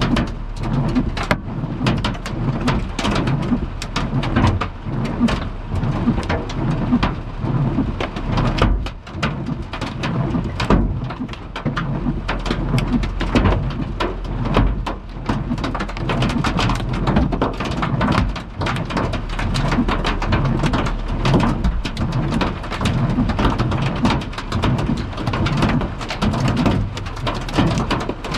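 Hail and heavy rain pelting a car's roof and windshield, heard from inside the car: a loud, dense, unbroken clatter of hard impacts over a low rumble.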